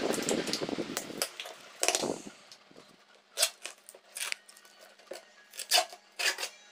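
Paper and plastic packaging rustling as a parcel is handled and unwrapped: a rubbing rustle for the first second, then a string of separate sharp crinkles.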